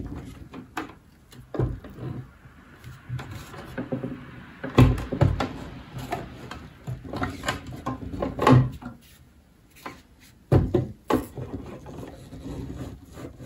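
12 V sealed lead-acid batteries being pushed and fitted back into the plastic case of a UPS: irregular knocks, clunks and scraping of plastic on plastic, with a few louder knocks scattered through.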